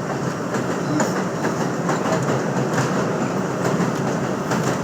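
New York City Subway 7 train running at speed: a steady rumble of wheels on rails with scattered clicks over the track, heard from inside a passenger car.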